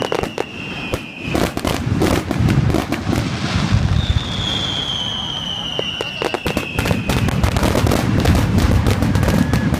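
Aerial fireworks going off close by: dense runs of crackling pops and bangs, with two long whistles sliding down in pitch, one just at the start and one about four seconds in.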